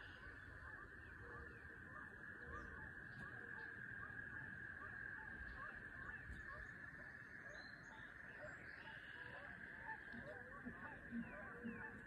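Faint, repeated short animal calls over a steady hiss and a low rumble, with a few soft knocks near the end.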